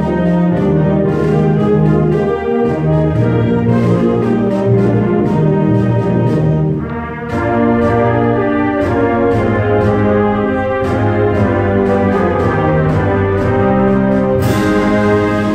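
School concert band playing a holiday medley: sustained brass and woodwind chords over regular percussion strokes, with a short dip about seven seconds in and a crash near the end.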